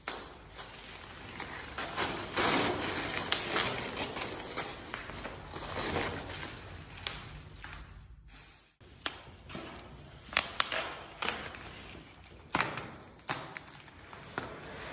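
Plastic wrapping and bubble wrap rustling and crinkling as packing is pulled and cut away by hand, with scattered sharp clicks and knocks.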